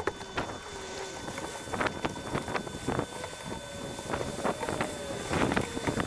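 Pole-mounted brush scrubbing a wet chemical wash onto concrete roof tiles, with a run of irregular scraping strokes, and wind noise on the microphone.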